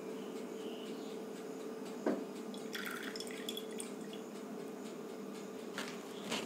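Cooking oil poured from a measuring cup into a glass bowl, trickling and dripping, with a light knock about two seconds in and a few small clicks near the end. A steady low hum runs underneath.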